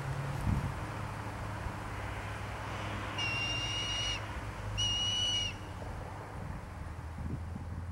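Juvenile red-tailed hawk calling: two long, high, steady whistles, the second shorter, about a second and a half apart.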